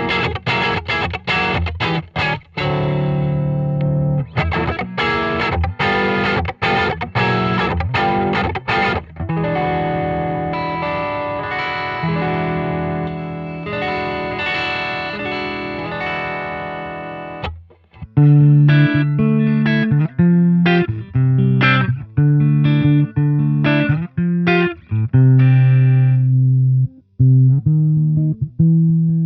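Aria Pro II TS-400 Thor Sound electric guitar being played: short, clipped chords at first, then long ringing notes, and from about 18 seconds in a darker, choppy riff on low notes.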